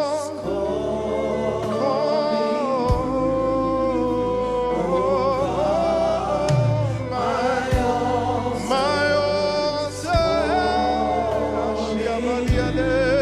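Live gospel worship music: voices singing a slow, held melody over keyboards and bass, with occasional drum hits.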